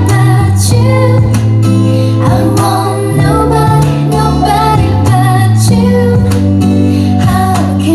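A song with a woman singing over guitar, a steady bass line and a regular beat, played loud through home-built speaker boxes as a vocal sound test.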